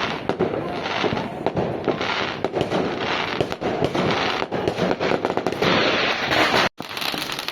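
New Year's Eve fireworks going off continuously: a dense, unbroken crackle of many overlapping pops and bangs. It cuts out for an instant near the end.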